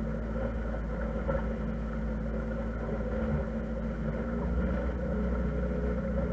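Motor yacht's engine running steadily under way, a continuous low drone whose tone shifts slightly about four seconds in.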